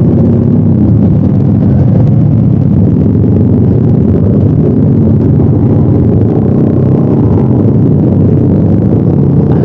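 Bored-up Honda Vario 125 automatic scooter's single-cylinder engine running steadily through an aftermarket exhaust while riding, a loud, even drone.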